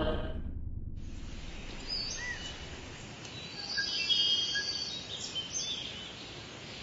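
Outdoor ambience with a low hiss and scattered short bird chirps and whistles, busiest around the middle. The tail of a music cue fades out in the first second.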